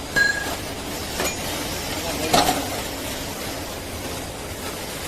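Metal-on-metal clinks and knocks from pump parts and tools being handled. A short ringing ping comes right at the start, then further knocks about a second in and about two and a half seconds in, over a steady background hiss.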